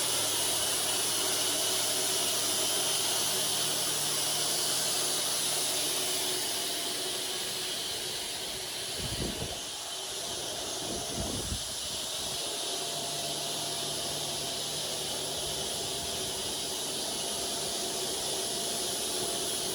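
Custom-built wide bandsaw sawmill running with a steady hiss and a low hum beneath. The hum drops away for a few seconds about halfway through, then returns.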